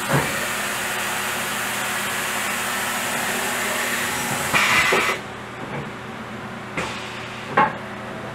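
Haas EC-2000 horizontal machining center running under power: a steady hum with a hiss over it. A louder hiss swells a little past four and a half seconds, and the high hiss cuts off at about five seconds. A couple of short knocks follow near the end.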